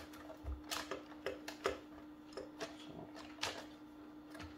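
Light plastic clicks and knocks as a Roomba i7 cleaning head module is handled and pressed into its bay in the robot's underside: a scattered series of short taps, one a little louder about three and a half seconds in, over a faint steady hum.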